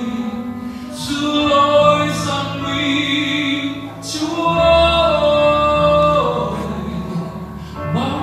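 A man singing a Vietnamese Christian song into a handheld microphone, amplified through a PA, over a pre-recorded instrumental backing track. He holds long sustained notes, one of them held for about two seconds near the middle.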